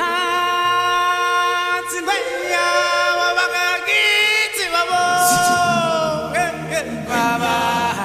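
Vocal music: a cappella African chant, voices singing long held notes with a wavering vibrato, and deeper voices joining about five seconds in.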